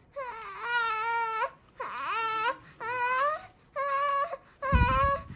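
A baby of about three months fussing and crying in a string of about five short cries, one of them swooping down and back up in pitch. A low thump comes near the end, under the last cry.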